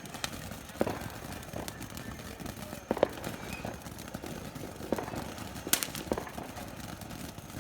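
Fireworks: scattered sharp pops and cracks over a steady low hiss, with the loudest pops about three seconds in and again near the end.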